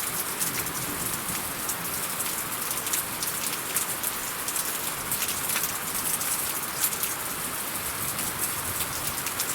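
Steady rain falling on a surface, a continuous hiss with many sharp drop splashes scattered through it.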